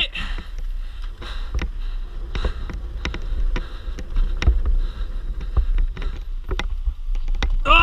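Mountain bike descending a rocky trail at speed: steady wind rumble on the microphone, with frequent sharp clacks and rattles as the tyres and frame hit rocks and roots.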